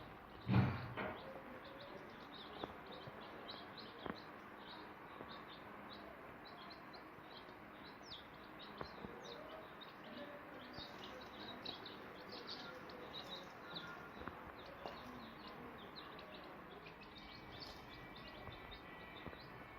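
Many day-old chicks peeping together: a constant mass of short, high chirps. A single loud thump comes about half a second in.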